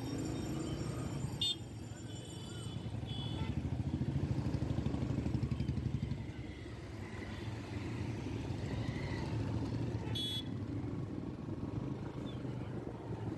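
Street traffic heard from a moving vehicle: a steady engine rumble with motorcycles passing, swelling louder between about four and six seconds in. Two short high beeps come through, one about a second and a half in and one about ten seconds in.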